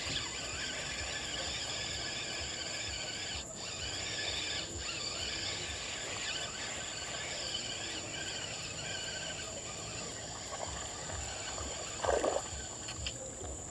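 Steady outdoor chorus of insects, a dense high hiss with a thin continuous high whine above it. A short, louder knock-like sound comes about twelve seconds in.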